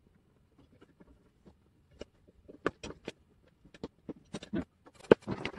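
Small plastic clicks and knocks as a servo is worked out of a Siku Control32 RC truck's plastic chassis. The clicks start about two seconds in, come irregularly, and there is one louder sharp snap near the end.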